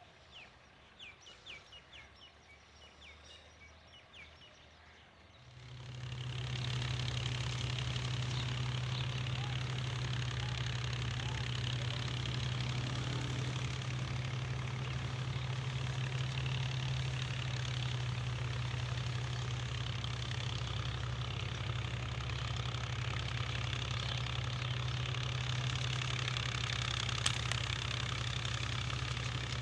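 A steady engine hum at one even pitch starts abruptly about five seconds in and runs on unchanged. A single sharp click comes near the end. Before the hum it is quiet, with a few faint bird chirps.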